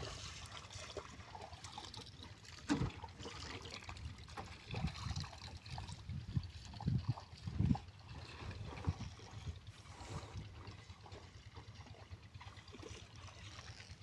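Water lapping and trickling against the hull of a wooden river boat, uneven and fairly quiet, with a couple of soft knocks.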